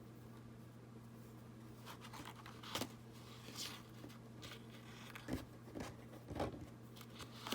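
Faint rustling and a few light knocks from a paper-bag journal and crochet cord being handled on a table while a knot is tied, over a steady low hum.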